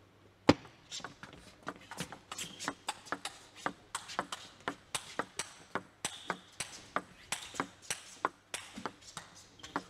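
Table tennis rally: the ball clicking off the rackets and bouncing on the table in quick alternation, about three sharp clicks a second, with one louder crack about half a second in.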